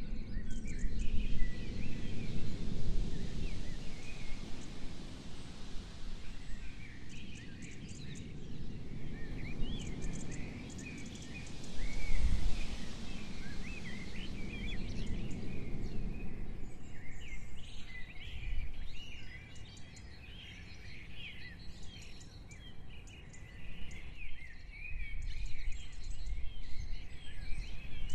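Several birds chirping and singing, a dense run of short chirps, over a low rumbling noise that swells and fades, loudest about twelve seconds in.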